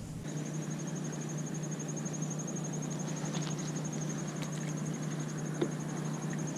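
Insect trill, a steady high-pitched rapid pulsing, over a steady low hum and background noise, with a few faint clicks.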